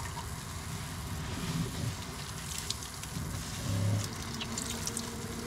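Water from a kitchen-sink faucet running over a head of hair into the sink, with the wet squelch of hands scrubbing shampoo-lathered hair.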